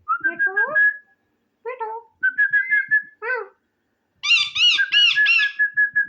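Pet parrot whistling and chattering: a held whistle note comes and goes between short pitched calls, with a quick run of rising-and-falling calls about two-thirds of the way in.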